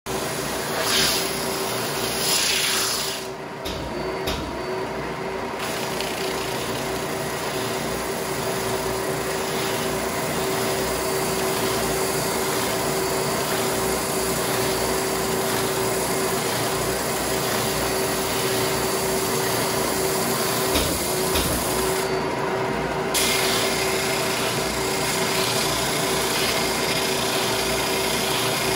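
Ridgid EB4424 oscillating edge belt/spindle sander running steadily, a wooden block pressed against its oscillating sanding belt, with a dust-extraction vacuum drawing through the hose on its dust port.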